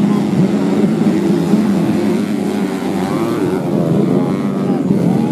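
Underbone motorcycle engines racing on a dirt track, several at once, revving up and easing off as the riders work the throttle through the corners.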